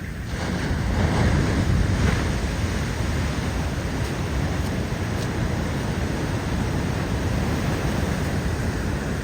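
Pacific Ocean surf: waves breaking and washing in, with wind rumbling on the microphone. The surge swells up just after the start and is loudest a second or two in, then holds steady.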